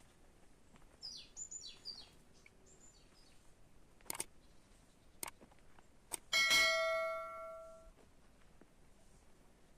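Short bird chirps about a second in, then a few light clicks, then a single ringing metallic strike like a small bell, which fades away over about a second and a half.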